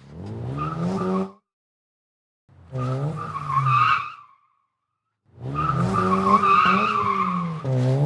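Car engine revving with tires squealing, in three separate bursts with dead silence between them; the engine pitch climbs in the first burst.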